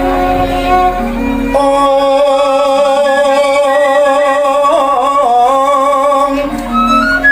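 Javanese gamelan music accompanying a shadow-puppet play. From about a second and a half in, one long wavering held note carries on for several seconds before the melody moves on.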